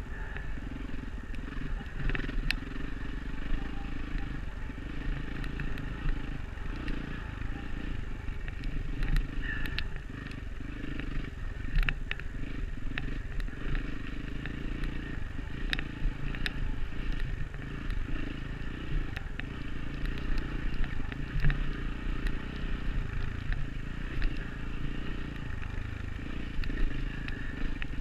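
Dirt bike engine running steadily while riding a trail, with occasional short clicks and knocks from the bike and the ground.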